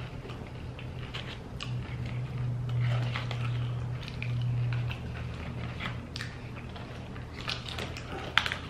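Close-up crunching and chewing of tortilla chips, irregular crackly crunches with a sharper crunch near the end, over a steady low hum that swells in the middle.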